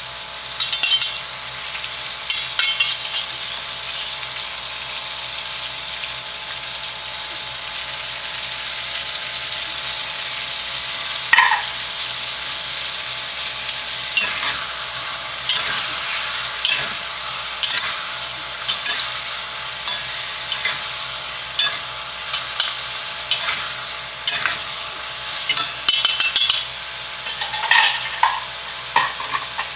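Stir-fry sizzling steadily in a hot pan, with a spatula scraping and clinking against the pan as the food is stirred, more often in the second half.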